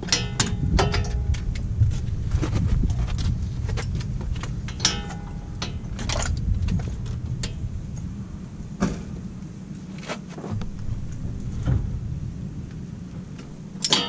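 Steel socket and wrench clinking against the wheel hub as they are fitted onto the axle nut: scattered sharp clicks, some with a short metallic ring. Under them runs a low rumble that fades over the second half.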